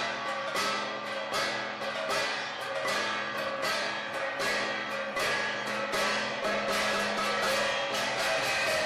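Music with a steady percussive beat of sharp, evenly spaced strikes, about three a second, over a held low drone.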